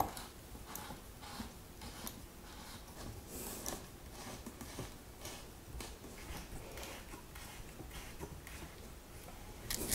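Faint, irregular clicks and scrapes of a hand screwdriver with a hex bit turning a 50 mm Allen-head screw into pre-drilled wood.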